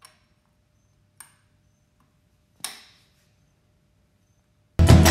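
A few light clicks as the brass bobbin cap is fitted back onto the cylinder arm of a Cowboy 4500 industrial sewing machine, the loudest a sharp click with a short ring about two and a half seconds in. Music starts abruptly near the end.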